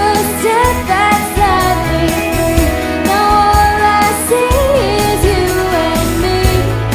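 Pop song: a woman singing a melody over acoustic guitar and a steady beat.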